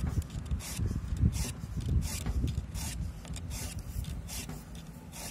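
Round chainsaw file rasping across the cutters of a Stihl chainsaw chain in a bar-mounted file guide, in short repeated strokes about two a second.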